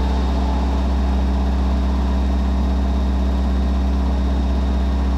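Car-audio subwoofers in a pickup truck playing a loud, steady, deep bass tone held at one pitch, with faint overtones above it.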